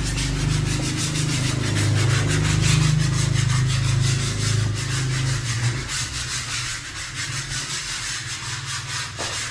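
Rhythmic rubbing strokes of hand sanding on wood, fast and even. A low hum sits under it and drops away about halfway through.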